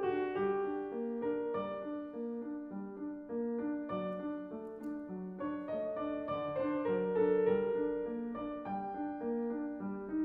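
Schimmel grand piano playing a classical solo piece, an even repeating accompaniment in the lower notes under a melody above.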